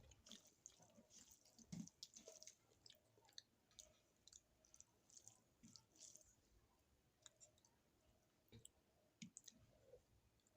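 Faint chewing with many small wet mouth clicks, irregular and scattered: a person eating rice and curry.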